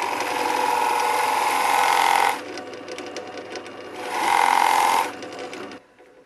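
Drill press running with a Forstner bit boring a shallow flat-bottomed recess into wood. The bit cuts in for about two seconds, eases off, then cuts again for about a second. The motor stops near the end.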